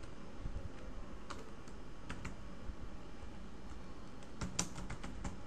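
Computer keyboard being typed on: several scattered keystrokes at an uneven pace with pauses between them, the loudest near the end.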